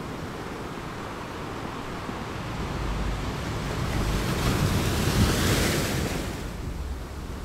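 Sea surf breaking on the shore, the rush of a wave swelling to a peak about five seconds in and then falling away, with wind blowing.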